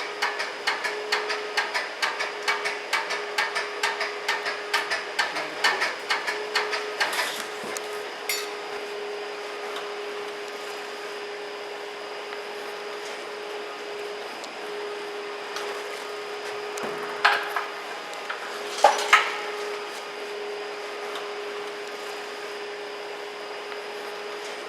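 Light tapping with a hand tool, about three quick strikes a second for the first seven seconds, then two louder knocks later on. A steady machine hum with a constant tone runs underneath.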